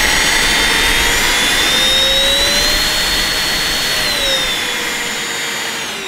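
Hosome 22.2-volt cordless vacuum's motor running with a steady whine. It rises in pitch about two seconds in as it is switched to maximum suction, then drops back about four seconds in to the lower minimum-suction setting.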